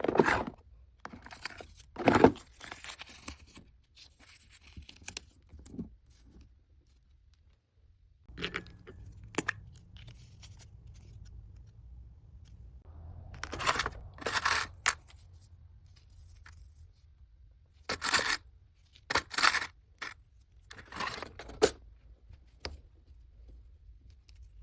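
Packaging being torn open and handled, a series of short tearing and rustling strokes in irregular groups with quiet gaps between them.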